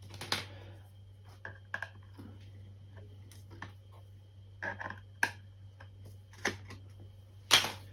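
Scattered small clicks and taps of plastic covers being unclipped and lifted off contactors on a control panel, with a louder clatter near the end, over a steady low hum.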